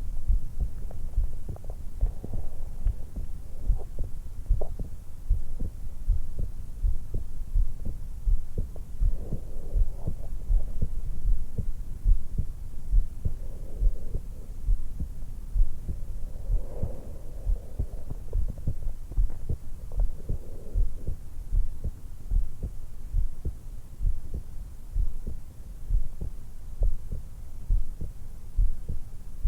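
A woman's heartbeat at rest just after waking, picked up by a stethoscope microphone pressed to the hollow at the base of her throat: a steady run of low, dull beats, with her breathing heard as soft swells of air every few seconds.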